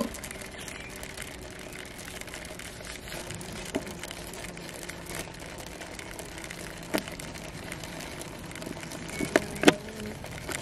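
Honey bees humming steadily inside a wooden nuc box, with a few sharp clicks and taps as drawing pins are prised out of the mesh over its entrance, two of them close together near the end.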